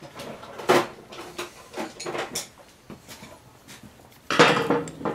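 Screwdrivers being fetched from a toolbox: a few sharp knocks and clatters of tools, then a longer, louder rattle about four seconds in as a drawer is worked.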